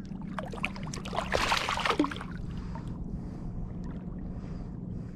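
Water sloshing and splashing around a kayak, with a few light knocks early on and a louder splash about a second and a half in.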